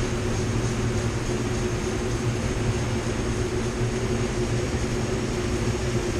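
Spray booth ventilation fans running: a steady rush of air with a low hum.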